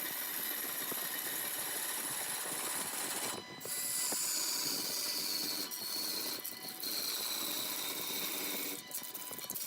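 Wood lathe hollowing: a cutting tool scraping the inside of a spinning wooden blank, a steady hiss broken by a few short pauses in the cut. A faint high whine falls in pitch around the middle.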